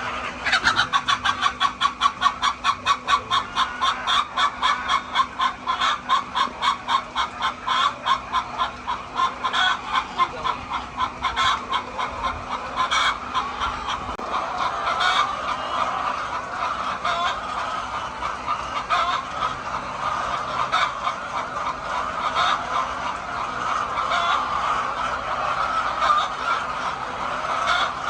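Chickens clucking and calling. Through roughly the first half, one bird keeps up a rapid string of calls at about four a second, then many overlapping calls from the flock run on.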